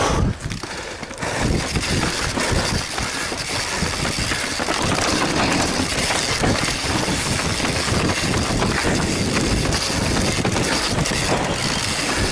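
Mountain bike descending a dirt trail at speed: wind rushing over the microphone, tyres rolling over dirt and dry leaves, and the bike rattling and knocking over bumps.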